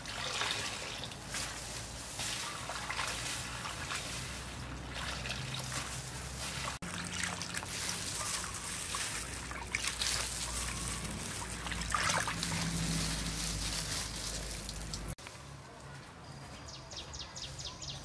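Water splashing and dribbling as wet cut red chilies are lifted and squeezed out of a basin of rinse water, then tipped into a bamboo basket. Near the end it turns quieter, with a fast, even, high ticking.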